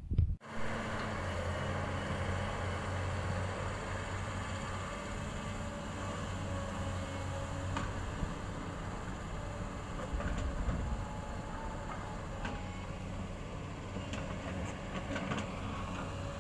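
Hydraulic excavator's diesel engine running steadily under working load while it digs, with a few faint knocks.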